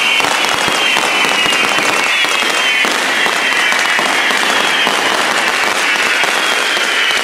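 Correfoc fire fountains spraying sparks: a continuous dense hissing crackle, with a high whistle that slowly drops in pitch.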